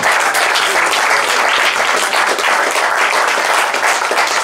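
Club audience applauding the end of a stand-up comedy set, dense clapping at a steady level.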